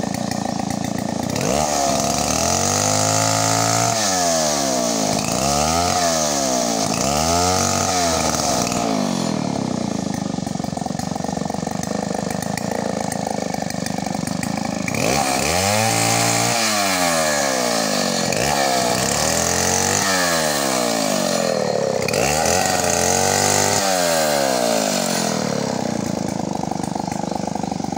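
Chainsaw engine revved up and down several times in quick succession, its pitch climbing and dropping with each blip of the throttle. It then runs more steadily for a few seconds before another series of revs.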